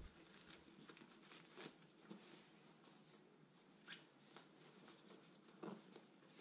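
Near silence, with a few faint, brief rustles of a nylon rain cover being handled and smoothed over a camera bag.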